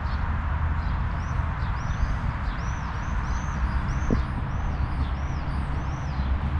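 A songbird singing a run of about ten high, arched chirps, about two a second, over a steady outdoor background rush with a low rumble.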